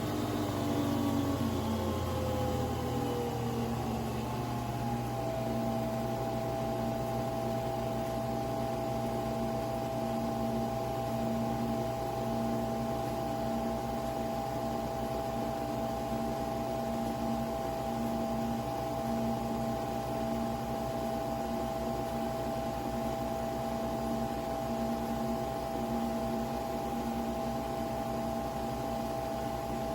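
Nespresso Vertuo Pop+ coffee machine brewing, its capsule-spinning motor and pump running. The motor's whine falls in pitch over the first few seconds, then holds a steady hum, with a lower note pulsing on and off beneath it.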